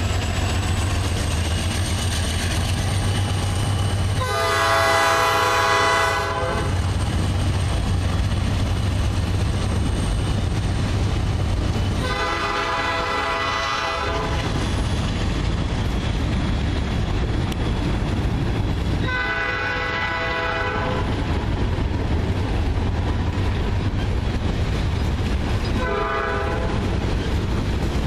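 Freight train rolling past close by: a steady low rumble of diesel locomotives and cars on the rails. A locomotive air horn blows four times over it, three long blasts of about two seconds each and a short one near the end.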